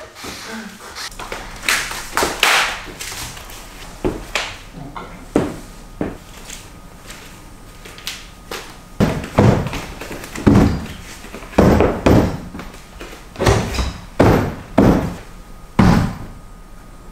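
A run of thuds and knocks as a sofa and its footstool are handled, assembled and set down on a hard floor, with the knocks coming closer together in the second half.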